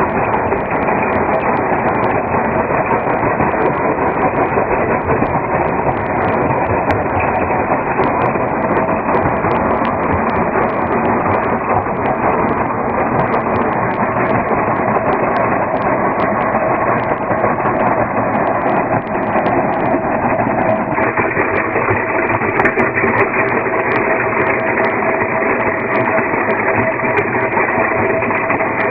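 Rock-crushing plant running: a loud, steady machinery drone from the crushers and conveyors, with a constant scatter of small clicks as rock falls into the sand-making crusher. The mix shifts slightly about 21 seconds in.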